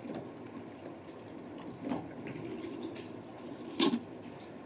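Faint handling noises with a couple of short, soft knocks, one about two seconds in and a louder one near the end.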